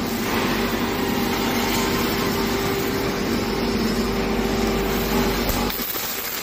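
Robotic MIG welding of a steel frame: the arc's steady crackling hiss, over a steady machine hum that drops out near the end.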